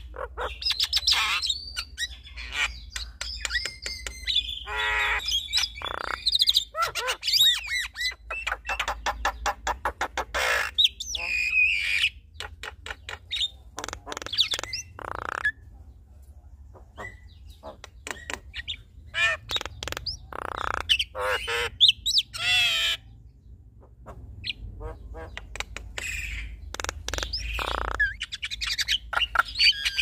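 A male and a female Javan myna calling back and forth in a duet: a quick run of harsh squawks, clicks and chatter mixed with whistled glides, with a few short pauses.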